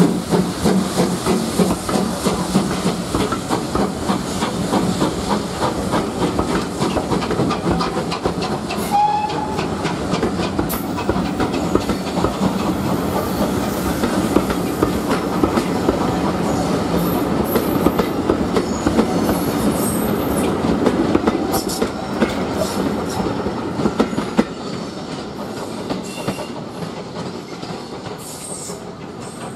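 Steam-hauled passenger coaches rolling past close by, their wheels clicking rhythmically over the rail joints. The sound fades over the last several seconds as the train draws away.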